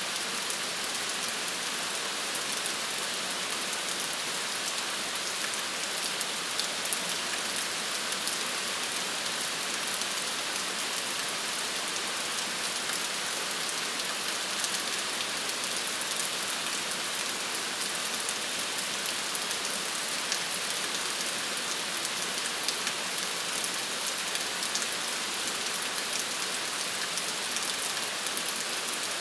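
Steady rain falling, an even hiss sprinkled with the ticks of individual drops on hard surfaces.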